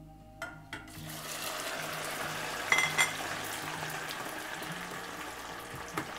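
Pre-fried beef strips tipped into hot oil in a stainless steel pot for their second deep-fry: after a couple of clicks, the oil bursts into loud, steady sizzling and bubbling about a second in. Two ringing metal clinks about halfway through and another click near the end come from a wire skimmer against the pot.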